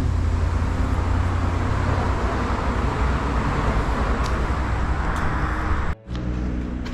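Road noise while riding a bicycle: wind rumbling on the microphone with traffic rushing past, cut off abruptly about six seconds in.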